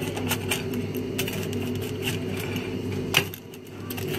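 Pizza-cutter wheel rolling through a baked pizza and clicking and scraping against the plate: a handful of short sharp clicks, the loudest about three seconds in, over a steady low hum.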